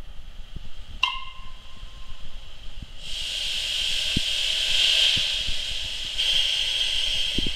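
Steam locomotive venting a jet of steam from low down beside its wheels: a loud, steady hiss that swells, dips briefly and comes back. A short ringing tone sounds about a second in.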